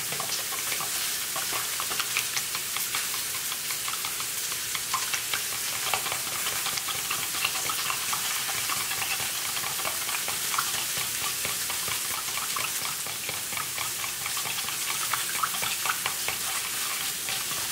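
Metal spoon stirring a thick gravy mixture of beef broth, brown gravy mix and cream of mushroom soup in a plastic measuring cup. It makes a steady run of small clicks and scrapes against the cup's sides.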